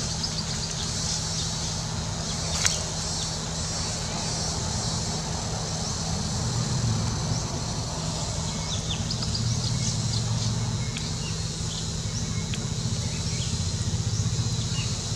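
Forest insects chirring steadily and high over a low steady hum, with a few short high chirps scattered through and one sharp click about three seconds in.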